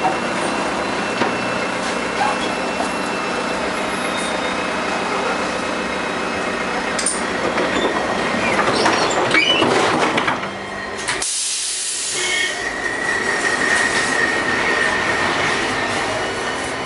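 LM-68M tram running along its track, a steady rumble of wheels on rails that swells for a couple of seconds past the middle. From about two-thirds of the way in, a steady high wheel squeal sounds over the running noise.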